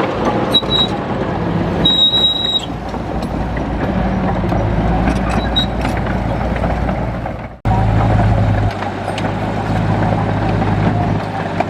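Heavy diesel engine of earthmoving machinery running steadily under load, with a few short high-pitched squeals in the first few seconds. The sound cuts out for an instant about two-thirds of the way through and resumes.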